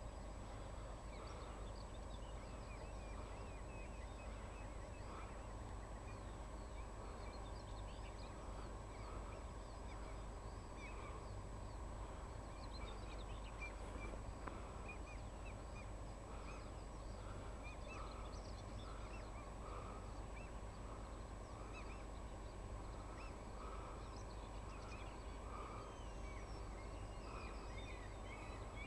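A family of geese calling on the water: many short, high peeps, typical of goslings, scattered throughout, over a steady low rumble.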